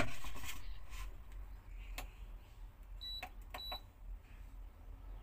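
Induction cooktop being switched on: a sharp knock right at the start, a few clicks from its buttons, and two short high beeps from the control panel about three seconds in, over a low steady hum.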